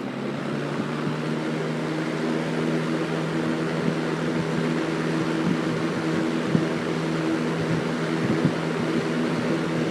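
1970s Lakewood S-223 box fan with a McMillan motor running on high speed: a steady rush of air over a motor hum, coming up slightly in the first couple of seconds as it reaches speed, with a few light ticks.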